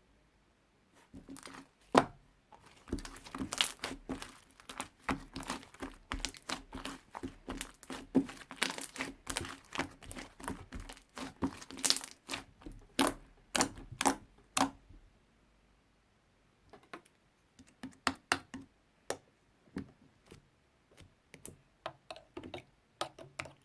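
Stationery-store slime being squished and poked by hand, a dense run of sticky, wet clicks and crackles that stops about fifteen seconds in, then sparser clicks near the end.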